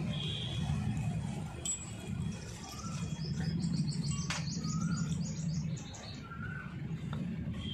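Small birds chirping, with a quick run of repeated high chirps in the middle, over a steady low rumble. A single sharp click comes near the middle.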